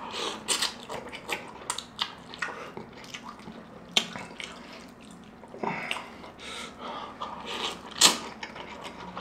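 Close-up wet eating sounds: birria ramen noodles in consommé being slurped and chewed, with quick wet smacks and clicks, and a loud slurp near the end.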